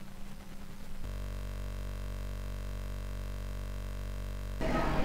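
A steady electrical-sounding hum with many overtones comes in about a second in, holds unchanged for three and a half seconds, and cuts off suddenly, giving way to louder noisy room sound just before the end.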